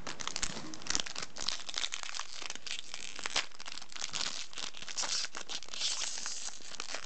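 Foil trading-card booster pack wrapper crinkling and being torn open by hand: a dense run of crackles.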